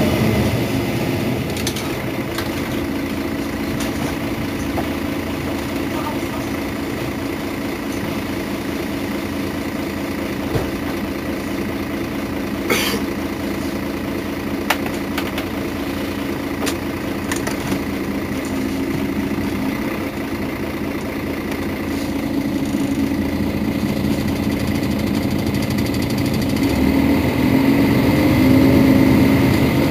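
Mercedes-Benz Citaro Facelift city bus engine idling steadily, with a few short clicks around the middle and a swell in loudness for a few seconds near the end.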